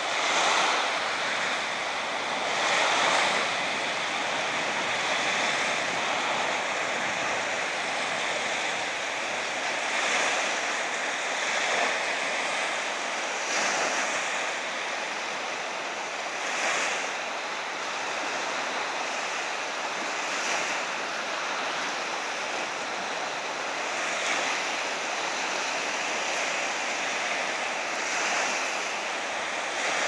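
Small waves breaking and washing up onto a sandy beach: a steady hiss of surf that swells every few seconds as each wave breaks.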